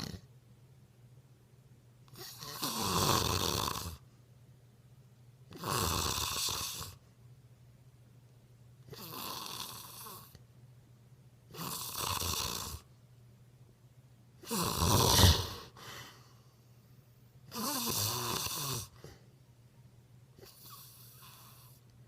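Snoring in sleep: seven snores, about one every three seconds.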